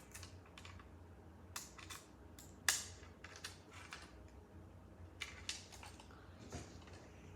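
A fire alarm pull station being handled, its parts giving a series of irregular clicks and small rattles, the loudest a sharp snap a little under three seconds in, while it is checked that it is reset.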